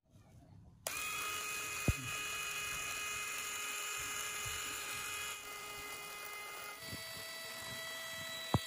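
Small battery-powered DC motor whining steadily as it spins the popsicle-stick rotor of a toy plastic-bottle helicopter. It starts up about a second in and its tone shifts twice, with two sharp clicks.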